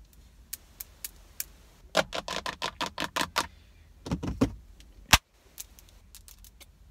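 Long acrylic nails clicking and tapping in quick runs of sharp clicks, with a dull thump about four seconds in and one loud sharp click just after.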